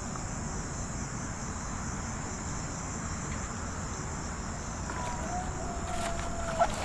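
Steady high-pitched chorus of crickets over a low rumble. Near the end a short thin whistle-like note rises briefly.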